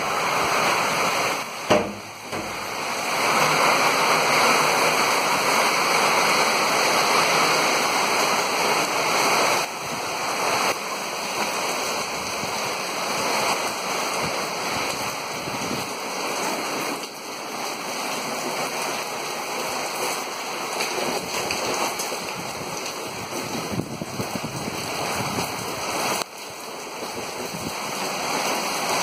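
Heavy rainstorm: torrential rain and wind make a steady, loud rushing hiss. There is a single sharp knock about two seconds in.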